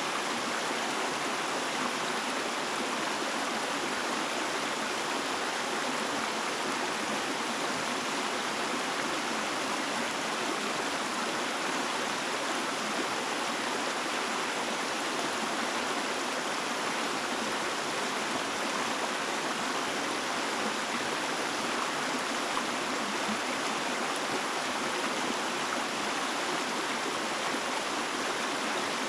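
A stream of running water, flowing steadily and evenly throughout with no breaks or changes.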